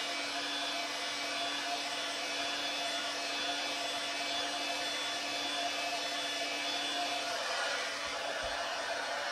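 DeWalt heat gun running steadily, its fan blowing a constant rush of hot air with a low hum underneath, as it heats a Kydex holster shell for bending.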